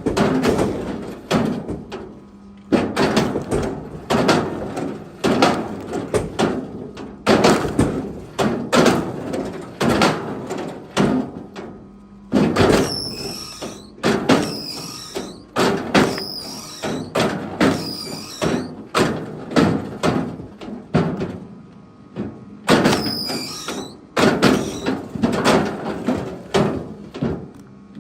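Split firewood pieces being thrown onto a pile, landing in a string of irregular wooden thuds and clatters, about one a second. A bird chirps twice in the background.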